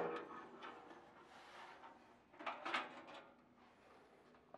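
Metal hopper housing of a pellet grill being pulled loose and lifted off: a clunk at the start, a faint scrape, then a couple of light knocks about two and a half seconds in.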